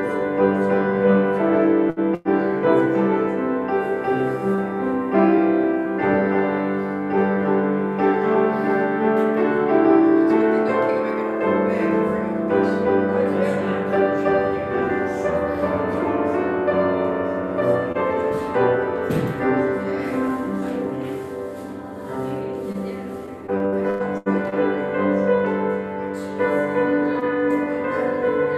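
Piano music: slow, held chords that change every second or two, with two very brief dropouts in the sound, one about two seconds in and one near the end.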